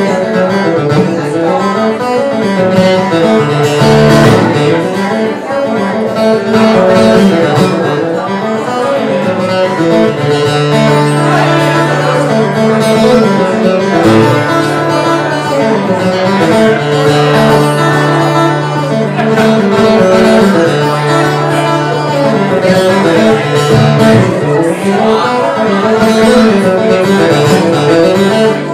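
Live acoustic guitar playing a tune with busy picked notes, over long held low notes.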